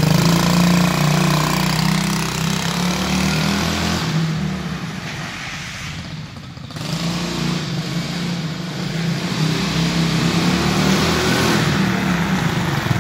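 Coolster 125 cc youth ATV's single-cylinder four-stroke engine revving hard under full throttle as the quad drives off, the sound sagging about midway and picking back up as it returns.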